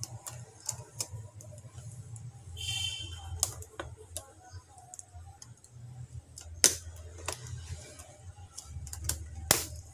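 Scattered plastic clicks and snaps as the hinge cover strip of an HP Compaq Presario V6000 laptop is pried loose with a small metal tool, with keys clacking under the hands. A short squeak comes about three seconds in, and the sharpest snaps come near the end.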